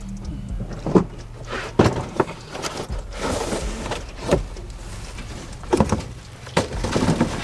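Scattered knocks and clunks of parts and tools being handled while swapping the truck's A/C condenser, over a steady low hum.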